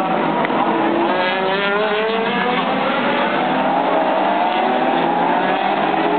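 A pack of endurance race cars accelerating through a corner: several engines overlap, their pitches rising steadily over a few seconds.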